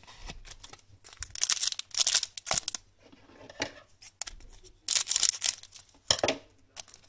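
A plastic wrapper of an Upper Deck Black Diamond 2000-01 hockey card pack being torn open and crinkled by hand, in several irregular bursts of rustling. The loudest bursts come about a second and a half in and again about five seconds in.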